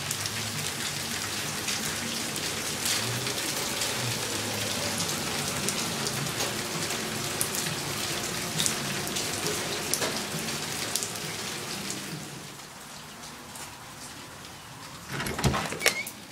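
Steady light-to-medium rain: an even hiss with many sharp drop ticks. It eases about twelve seconds in, and near the end come a few loud knocks.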